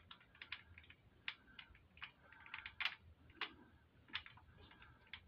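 Faint, irregular light clicks and taps of small metal parts being handled inside a V-twin motorcycle engine's cam chest, as pieces of a broken magnet are set against the tappets to hold them up. The loudest click comes nearly three seconds in.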